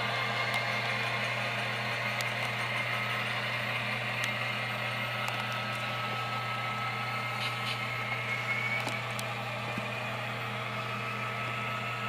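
Model diesel locomotives running as a consist, their onboard sound decoders (a SoundTraxx Tsunami and an MTH Proto-Sound 3) playing diesel engine sound through small speakers. Under it is a steady low hum and the running noise of the models, with a faint whine that slowly rises in pitch and scattered small clicks.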